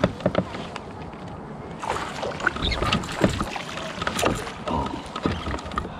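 Splashing with scattered knocks and clicks as a hooked largemouth bass is netted beside a plastic fishing kayak.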